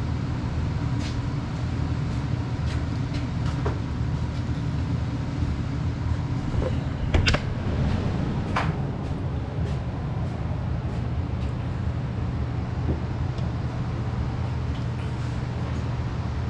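A vehicle engine running steadily with a low, even rumble, and scattered sharp clicks and knocks over it, the loudest about seven seconds in.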